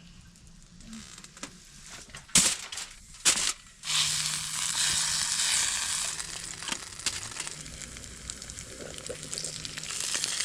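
A few sharp clatters, then food starts sizzling in a hot pan about four seconds in and keeps frying steadily.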